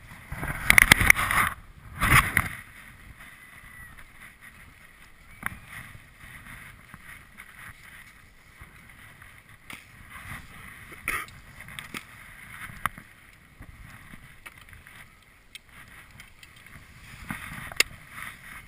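Ski boots crunching in snow while a ski and poles are handled: scattered crunches, clicks and knocks, with two loud rustling bursts near the start.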